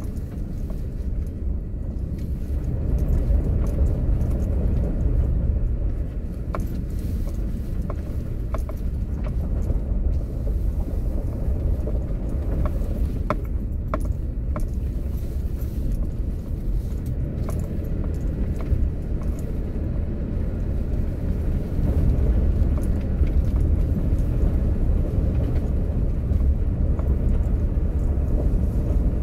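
Kia Mohave SUV driving on a rough dirt forest road, heard from inside the cabin: a steady low rumble of engine and tyres, with scattered light clicks and knocks through the middle stretch.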